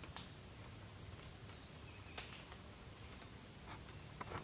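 Insects in the woods trilling in one constant high-pitched drone, with a few faint clicks.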